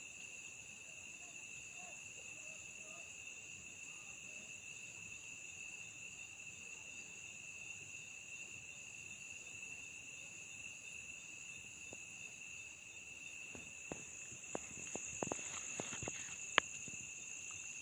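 Crickets chirring continuously, a steady high-pitched trill, with a few faint clicks near the end.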